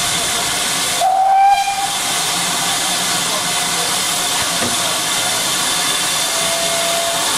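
Steam locomotive blowing off steam in a steady loud hiss, with a short whistle blast about a second in.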